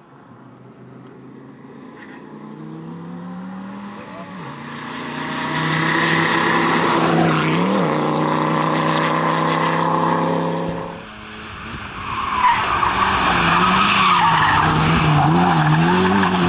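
A rally car's engine runs hard as it approaches, its pitch climbing and its level rising until it is loud. About eleven seconds in the sound changes abruptly, and a rally engine is heard at high revs with its pitch wavering up and down over tyre noise.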